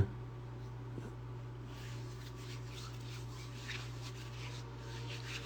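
Faint, soft rubbing and rustling of hands, heard intermittently over a steady low hum.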